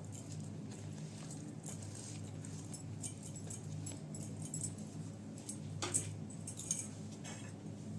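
Scattered light clicks, taps and squishy handling noises, the loudest about six seconds in, over a steady low hum.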